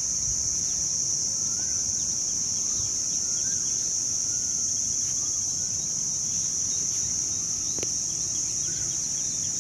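Insects keep up one steady, unbroken high-pitched drone, with a few faint bird chirps and a low rumble underneath. A single soft click comes near the end.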